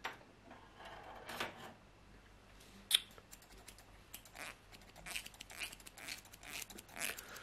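Tools picked up from a shelf with a knock and a rustle and a sharp click about three seconds in. Then a quick run of small clicks and scratches as white plastic combs are handled close to the microphone for ASMR.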